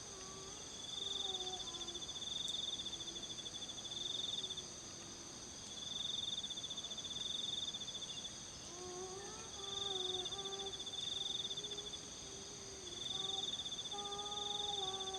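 Night insects: a cricket-like trill swelling in bursts of one to two seconds, every two to three seconds, over a steady high insect drone. A faint wavering pitched sound, like a distant voice, runs underneath.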